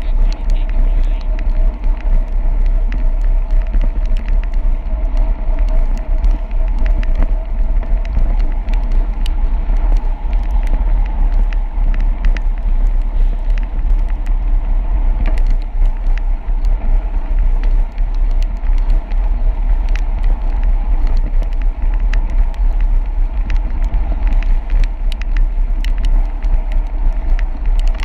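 Loud, steady wind buffeting on a handlebar-mounted camera on a road bike riding at speed, over the hiss of the tyres on a wet road, with frequent small clicks and knocks.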